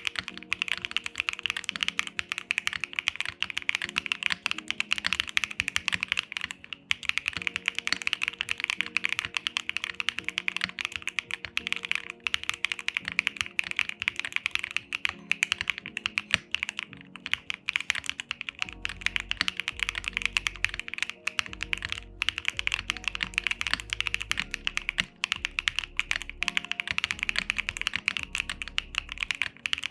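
Mechanical keyboard fitted with Gateron Smoothie long-pole switches being typed on fast and without pause: a dense, clacky run of keystrokes. Background music plays underneath, with a bass line coming in about two-thirds of the way through.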